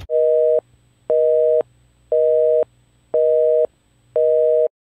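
Telephone busy-signal tone used as an editing sound effect: five half-second beeps, one each second, each a pair of tones sounding together.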